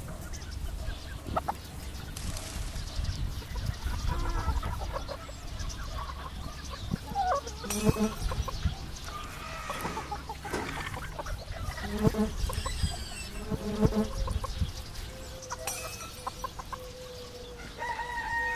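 Domestic chickens clucking, with several sharp louder clucks; near the end a rooster begins a long crow.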